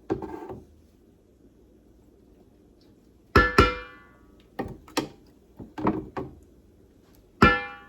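Metal cookware and utensils knocking together: a run of sharp knocks after a few quiet seconds, two of them, at about three and a half seconds in and near the end, ringing out with a metallic tone.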